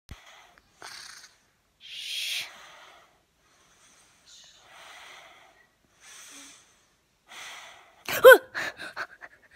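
A child breathing heavily, five breaths coming every second or so, the second the strongest. About eight seconds in comes a brief voice sound that falls in pitch, followed by a few short mouth noises.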